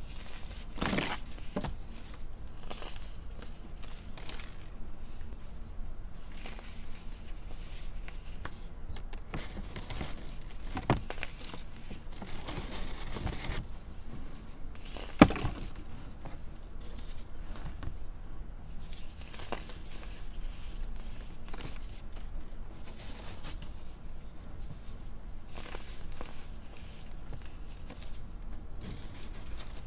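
Moulded shapes of reformed baking soda crushed and crumbled by hand: dry, crunchy cracks as the pieces break, with gritty rubbing of the loose powder between fingers in between. One sharp crack stands out about halfway through.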